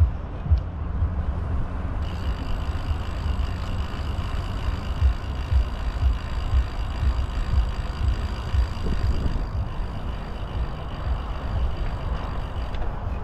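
Wind buffeting the microphone during a bicycle ride, a gusty low rumble with irregular thumps. A faint steady high whine comes in about two seconds in and stops shortly before the end.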